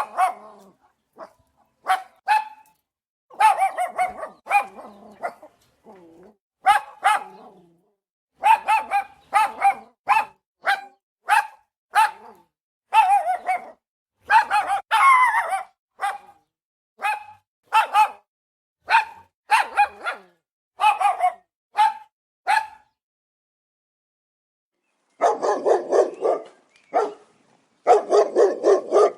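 German shepherd barking: a long run of short, sharp barks in irregular bouts. Near the end the barking stops for about two seconds, then resumes with lower-pitched barks.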